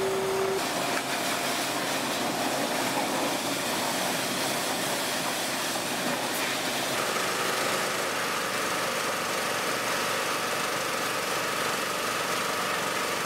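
Small gasoline engines of portable pressure washers running steadily, mixed with the hiss of high-pressure water jets spraying the truck.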